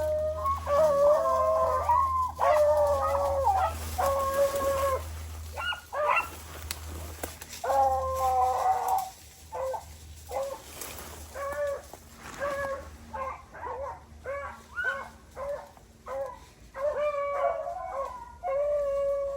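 A pack of rabbit hounds baying on a running rabbit: several dogs give overlapping drawn-out bawls, long and loud in the first half, then shorter, fainter barks.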